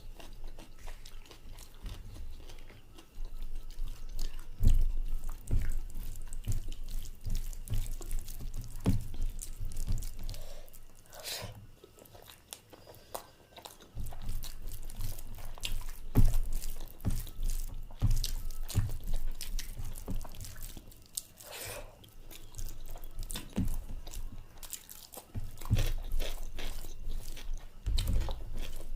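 A person chewing and biting food close to the microphone, with wet mouth sounds and crunches. The chewing lets up briefly about halfway through.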